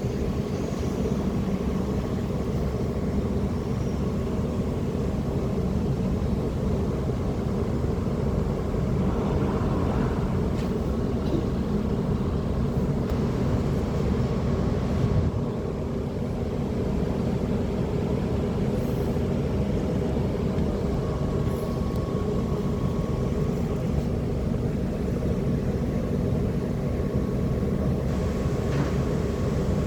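Steady low drone of a tanker ship's machinery, even and unchanging, with a faint thin whine that comes and goes.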